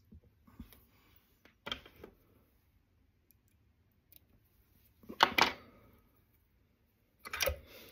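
Small fly-tying scissors snipping off the waste end of the quill at the hook eye: a sharp double snip about five seconds in, with a few fainter clicks from handling before and after.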